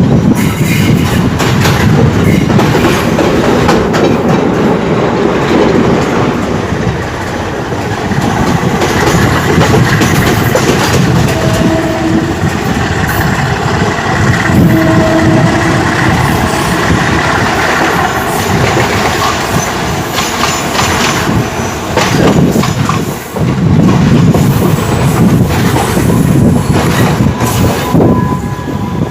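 Express passenger train running on the rails, its wheels clattering rhythmically over the rail joints, with a high wheel squeal heard at times.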